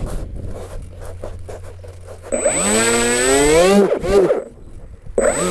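Electric motor and propeller of an FPV model aircraft, heard over a low wind rumble. About two seconds in, the motor whines up in pitch for a second and a half as the throttle opens, then cuts off. A shorter rising-and-falling whine of a throttle blip comes near the end.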